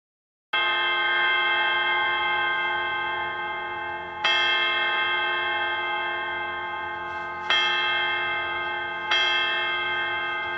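A bell striking the hour at twelve o'clock: four strikes, the first about half a second in and the others roughly three, six and a half and eight and a half seconds later, each ringing on with many overtones until the next. The ringing cuts off at the end.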